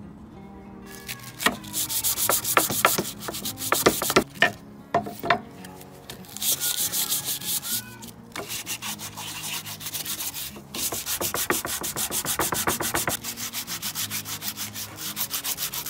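Sandpaper rubbed by hand against the weathered wooden body of an old bench plane, in runs of quick back-and-forth scraping strokes broken by short pauses. Over the last few seconds the strokes come evenly, about four or five a second.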